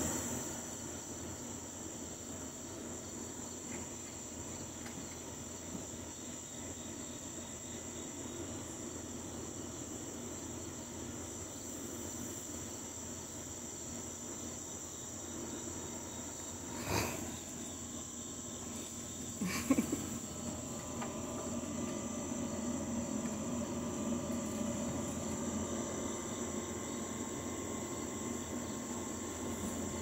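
Steady, high-pitched chirring of night insects with no let-up. About 17 seconds in and again near 20 seconds, a short knock or scuffle rises above it.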